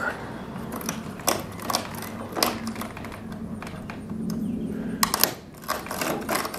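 Metal hardware at the top corner of a box truck's roll-up door being worked by hand: irregular sharp metallic clicks and clinks, spread unevenly, with a small cluster about five seconds in.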